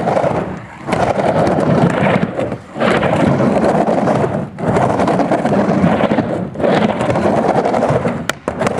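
Skateboard wheels rolling on a plywood halfpipe: a loud, steady rumble that drops off briefly about every two seconds as the board passes up and back down the walls. A couple of sharp clicks come near the end.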